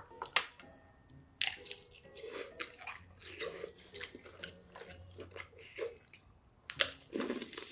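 A person eating: biting into food and chewing, with short sharp clicks scattered through and a louder run of bites near the end.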